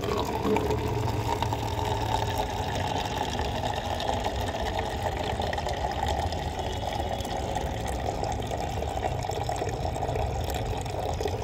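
A thin stream of water pouring steadily into a clear plastic jar, filling it.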